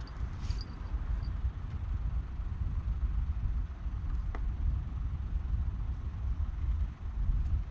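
Wind rumbling steadily on the microphone, with a few faint clicks.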